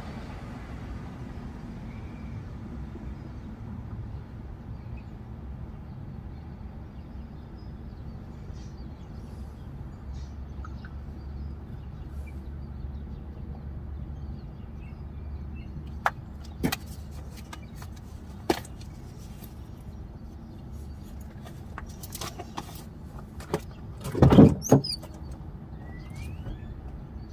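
Steady low background rumble, with a few sharp clicks and knocks starting about two-thirds of the way in and one louder clatter near the end.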